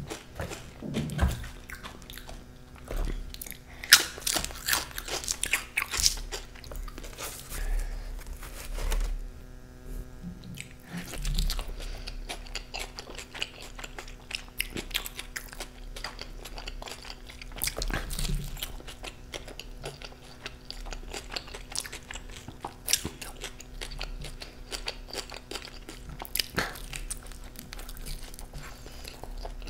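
Close-miked biting and chewing of a slice of veggie pizza, with crunchy bites coming at irregular intervals.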